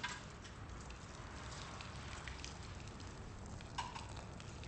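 Water poured steadily from a mug onto a man's head during waterboarding, making a soft, continuous splashing patter.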